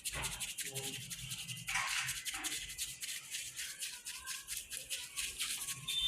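Motorcycle drive chain being scrubbed clean, with quick repeated rubbing strokes.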